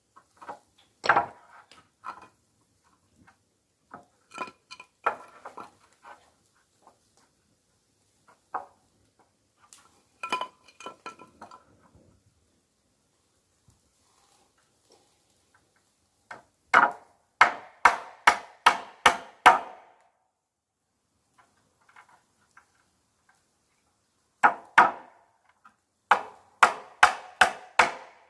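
Hammer strikes on wood: scattered knocks and taps at first, then two runs of steady, evenly spaced blows at about three a second, each with a short ring.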